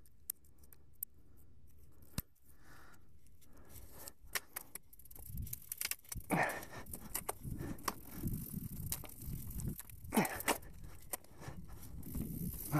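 Mountain bike rolling over a leaf-covered dirt singletrack: tyres crunching through dry fallen leaves while the chain and frame rattle over the bumps, busier and louder after about five seconds, with two louder scrapes near the middle and later on.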